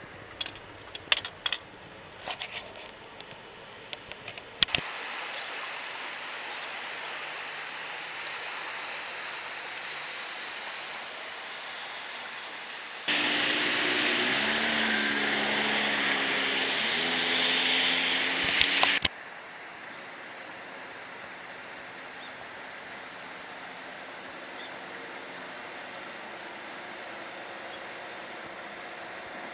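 Steady rushing noise in several short clips cut together. It starts with scattered clicks and knocks, then comes an even hiss. About thirteen seconds in, a louder stretch with a hum that rises and falls cuts in and stops abruptly about six seconds later, leaving a quieter hiss.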